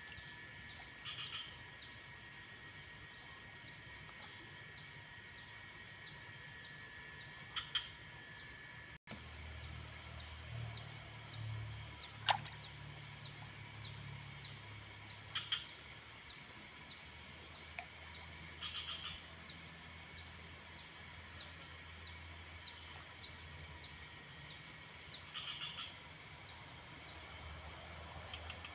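Outdoor ambience: insects droning steadily at a high pitch with a fast, even ticking, and a bird giving short chirps every few seconds. A low rumble comes in about nine seconds in, with a single sharp click a few seconds later.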